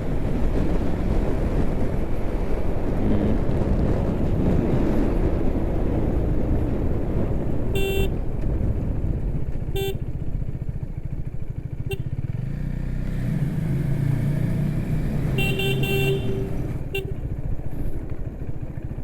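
Motorcycle on the move, engine and wind rumbling steadily, with a horn honking several times: short toots about eight, ten and twelve seconds in, and a longer honk a little later.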